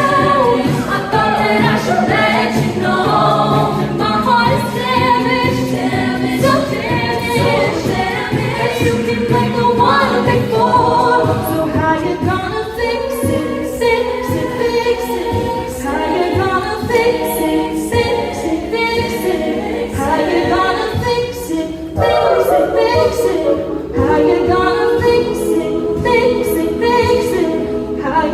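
High school a cappella choir singing in close harmony, voices only with no instruments.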